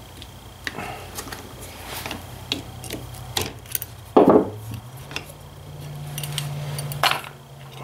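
Small metal distributor parts clicking and clinking as they are handled on a workbench, with one louder sound about four seconds in. A steady low hum runs underneath.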